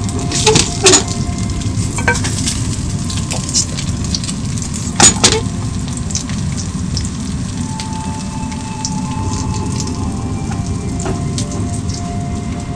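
Okonomiyaki, a cabbage-and-pork batter pancake, sizzling steadily in hot oil in a non-stick frying pan. There are a few sharp clicks of a plastic spatula against the pan about a second in and again about five seconds in.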